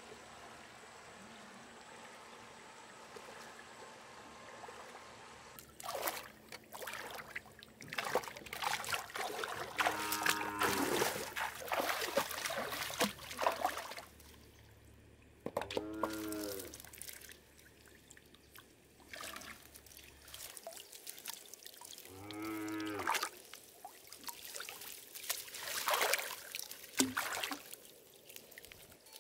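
Water splashing and trickling as someone wades in a shallow stream and lifts a folding mesh fish trap, after a few seconds of steady stream hiss. Three drawn-out calls, each about a second long and rising then falling in pitch, come through the water sounds about six seconds apart.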